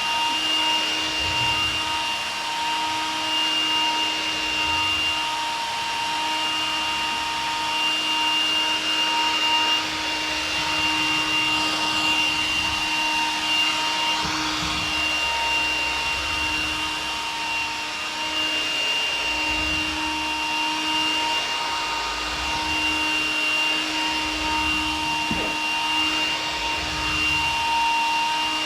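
Vacuum cleaner running steadily, a constant motor whine and rush of air, with low rumbles coming and going.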